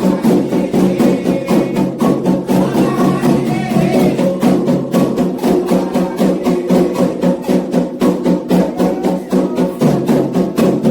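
Candomblé ritual percussion: atabaque hand drums with a metal agogô bell beating a fast, steady rhythm of about five strokes a second, with faint singing mixed in.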